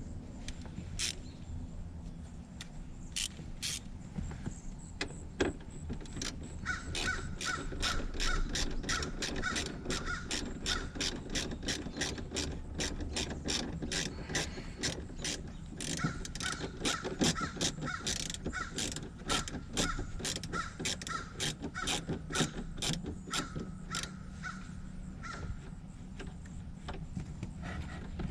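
A ratcheting hand tool clicking in two long runs of quick, even clicks, about two or three a second, with a brief pause between them: the ratchet pawl turning fasteners in by hand.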